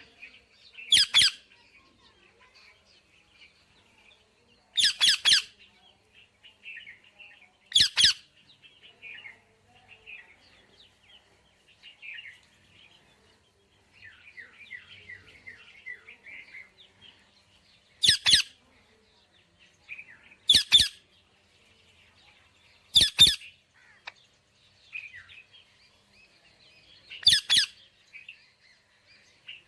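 Indian ringneck parrots chirping and chattering softly throughout. About seven loud, harsh screeches cut through it, some in quick pairs.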